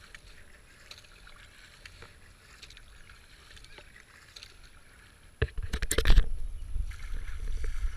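Kayak paddle strokes on calm water, faint, with drips and small splashes off the blade. About five and a half seconds in, sudden loud knocks and a low rumble set in: handling noise on the deck-mounted action camera's housing.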